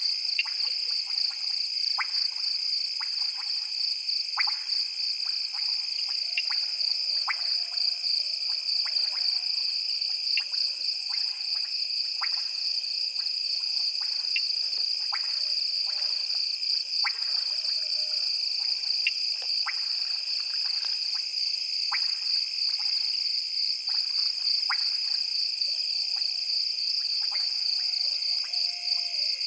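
Night chorus of frogs and insects: a steady, shrill, rapidly pulsing insect trill, with frogs giving short sharp clicks at irregular intervals and faint low croaks beneath.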